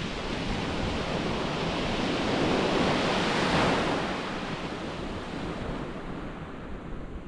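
A sea wave breaking on the shingle of Chesil Beach, a rushing noise that swells to its loudest about halfway through and then fades.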